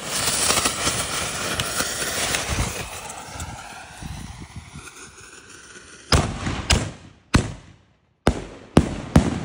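Canister shell fireworks going off: fuses hiss and spit loudly for about three seconds, then a few low thumps come from the mortar tubes. From about six seconds in, six sharp, loud bangs follow in quick succession as the shells burst overhead.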